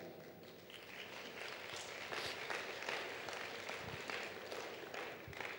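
A congregation applauding, with many scattered claps that build about a second in and fade out near the end.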